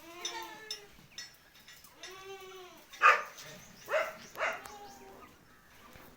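Goats bleating: two drawn-out, wavering bleats in the first half, then three short, louder calls.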